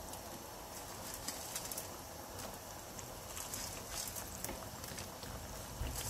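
Gravy simmering in a pan, with scattered small pops and soft plops as fried sprouted mung and moth bean vadas are dropped into it one by one.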